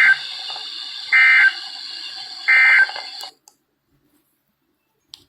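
EAS end-of-message data bursts from a Midland WR-120EZ weather radio receiving NOAA Weather Radio: three short, shrill digital screeches about 1.3 seconds apart over radio hiss, marking the end of the alert. About three seconds in the receiver's audio cuts off suddenly, and a faint click follows near the end.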